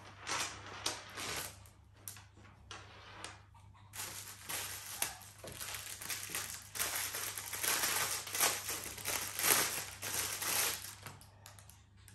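Packaging wrap rustled and crumpled by hand: scattered rustles at first, then dense crinkling from about four seconds in that dies away near the end.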